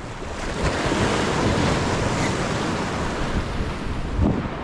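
Ocean waves washing and surging against the shore, with wind buffeting the microphone; a brief louder surge near the end.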